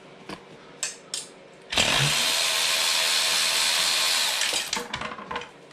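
Cordless power ratchet running for about three seconds, spinning a 12 mm bolt off at the exhaust header, after a few short clicks.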